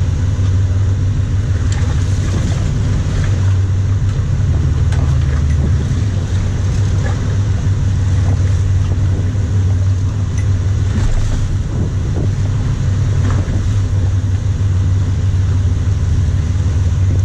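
A sportfishing boat's engines running with a steady low drone, with the wash of water and wind over it. The drone is a little stronger for the first several seconds.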